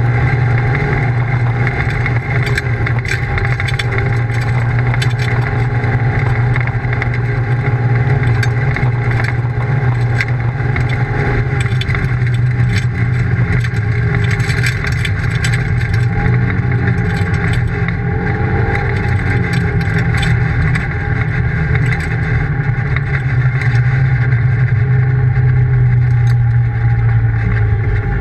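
Polaris RZR side-by-side's engine running at a steady cruise, heard from inside the open cab, with road noise from the gravel under the tyres.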